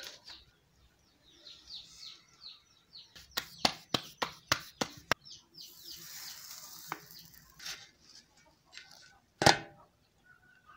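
Small birds chirping, then a quick run of about six sharp pats as a round of pearl-millet dough is patted out by hand. A soft hiss follows as the dough goes onto the hot iron tawa, and one louder knock comes near the end.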